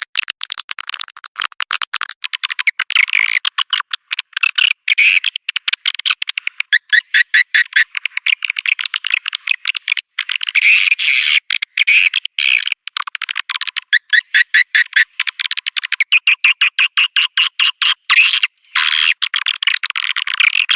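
Recorded swiftlet calls played as a lure to draw swiftlets into a nest house: a dense chatter of rapid, rattling chirps and twitters, with short breaks throughout.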